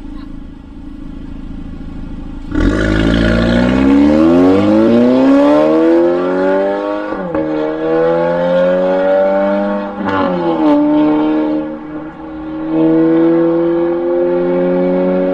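Audi A5 B9 with a stainless steel mid pipe and valved muffler exhaust, accelerating hard. The exhaust note jumps louder about two and a half seconds in, then climbs in pitch through the gears, with brief dips at the upshifts.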